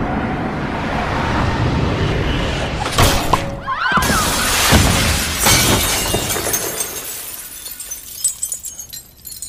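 A glass basketball backboard shattering under a slam dunk about three seconds in, followed by a shower of glass fragments falling and tinkling that fades away near the end.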